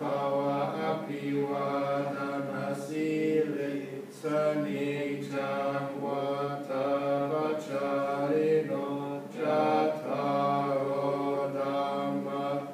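Theravada Buddhist monks chanting a blessing, a sustained, level-pitched recitation with brief pauses about four seconds and nine and a half seconds in.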